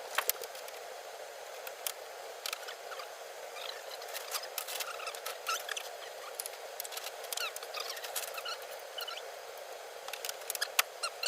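Many small irregular clicks and taps over a steady thin hiss with no bass.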